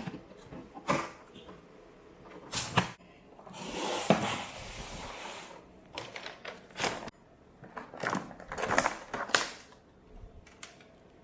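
Unboxing and setting up a toy foam-dart blaster: a string of plastic clicks and knocks as parts and packaging are handled, with a rustling stretch of about two seconds beginning some three and a half seconds in.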